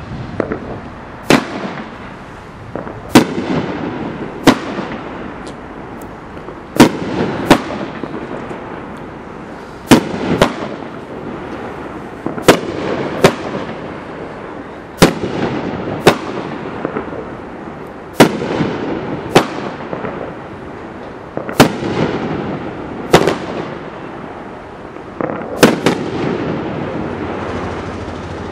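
A 10-shot Dominator 1.4 Pro PFX574B consumer fireworks cake firing its 2-inch brocade shells one after another: some twenty sharp reports, one every one to two seconds, with a rushing hiss trailing after each.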